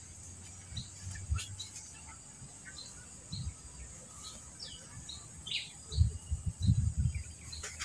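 Small birds chirping in short, scattered calls over a steady high insect drone, with low irregular thumps and rustles near the end.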